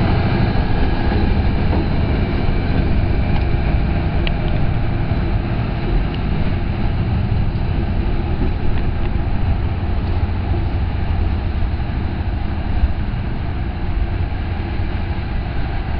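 FEVE 1900-series diesel locomotive running as it hauls three coaches away on a shunting move: a steady low engine throb and train rumble that slowly grows fainter.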